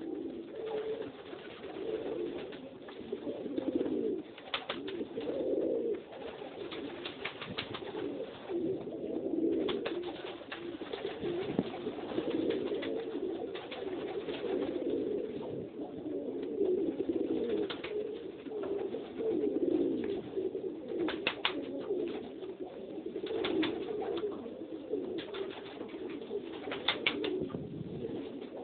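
A loft full of domestic pigeons cooing continuously, several birds overlapping. Occasional short sharp clicks come through over the cooing.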